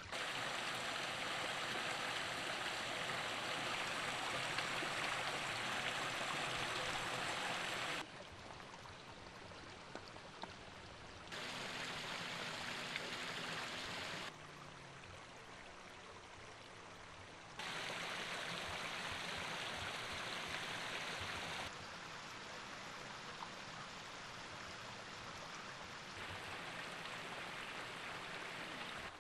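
Steady rushing and splashing of flowing water, a stream of water spilling into a trout pond. Its loudness jumps abruptly up and down several times.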